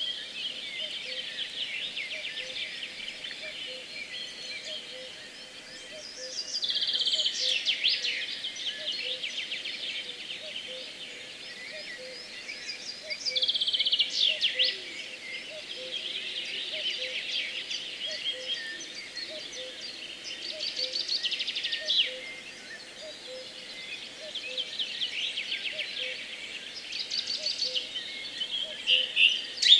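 Dawn chorus of songbirds: one bird repeats a loud song phrase every six or seven seconds over a steady mix of other birds singing. A faint low note repeats about once a second beneath it.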